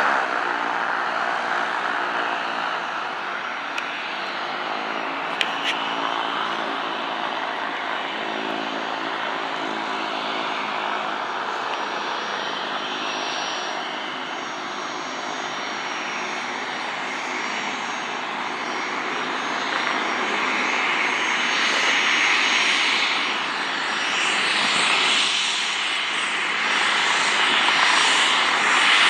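Business jet's rear-mounted turbofan engines running at taxi power, a steady rushing with a high whine, growing louder over the last third as the jet comes closer.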